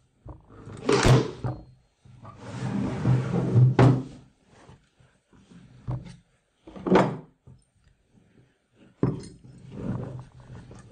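Hands-on canvas stretching: several separate clunks and knocks of a wooden stretcher frame, canvas pliers and a staple gun against a wooden table, with a stretch of canvas fabric rustling as it is pulled and smoothed a couple of seconds in.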